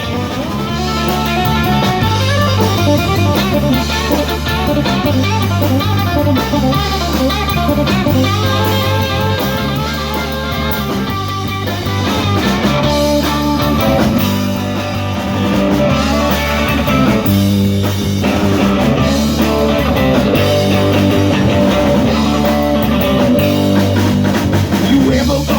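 Blues-rock band playing an instrumental passage: guitar lines over a repeating bass figure and a drum kit, with no singing.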